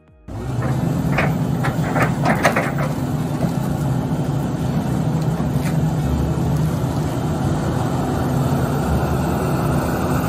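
Excavator's diesel engine running steadily under load, with a cluster of sharp knocks and clanks from about one to three seconds in as it works logs with its grab.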